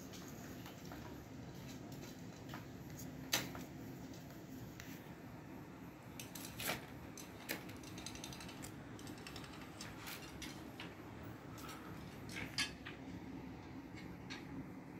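Scattered light clicks and metallic knocks from handling around a steel bowl and wire cage, the sharpest about three seconds in, near the middle and a couple of seconds before the end, over a faint steady hum.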